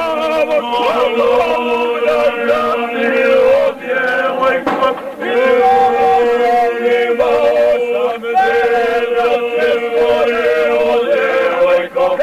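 A group of men singing together in a chant-like style: a steady held note runs beneath a wavering melody line.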